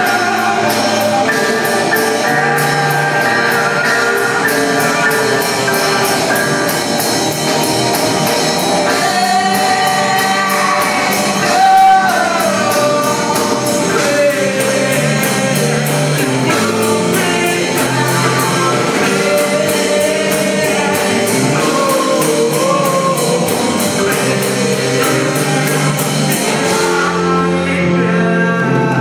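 Alternative rock band playing live, with electric guitar, bass guitar, keyboard and drum kit, and a vocalist singing over the band.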